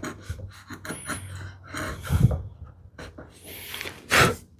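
Hand router plane taking short cuts along a wood groove: a series of brief rasping, scraping strokes, the loudest near the end.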